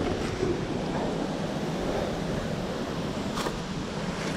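Steady rush of river water and waterfalls over rocks.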